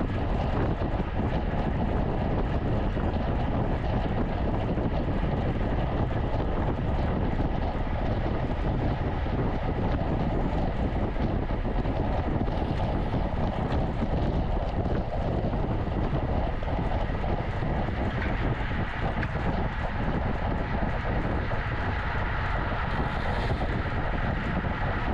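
Steady wind rush on the microphone of a camera carried on a bicycle ridden at race speed.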